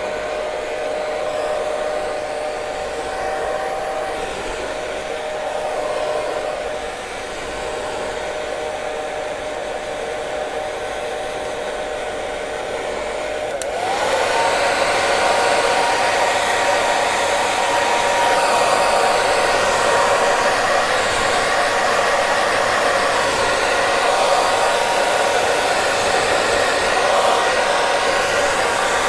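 Hair dryer running steadily: a constant rush of air with a motor whine. About halfway through, the whine glides up in pitch and the sound steps up louder and brighter, then holds steady again.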